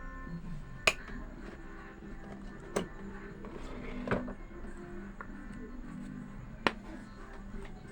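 Background music, broken by four sharp clicks spread unevenly through it.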